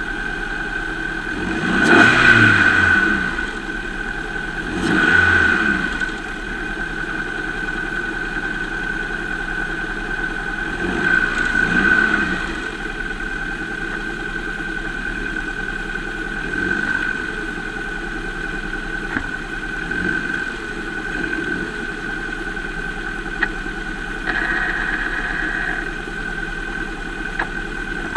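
2005 Volvo S40 engine idling, revved up in short blips about three times in the first half and more lightly later, with a steady high whine underneath. It is a throttle test for diagnosing a worn engine mount.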